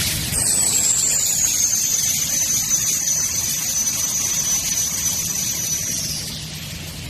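High-pitched whine from shell core moulding machinery, starting just after the beginning, sinking slowly in pitch for about six seconds and then falling away, over a steady hiss and low hum of running machines.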